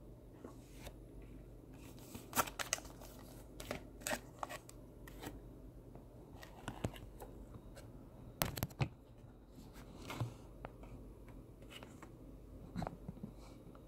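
Hands handling Pokémon trading cards and a foil booster pack: scattered crinkles, rustles and light taps, the loudest cluster about eight and a half seconds in.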